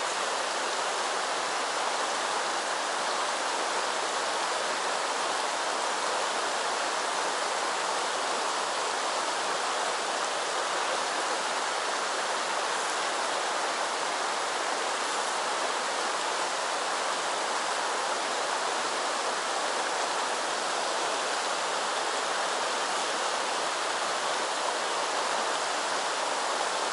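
Shallow mountain stream running over stones and pebbles: a steady, even rush of flowing water.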